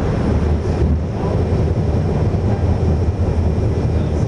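Steady low rumble of motorway traffic, cars and tyres on the road making a continuous noise.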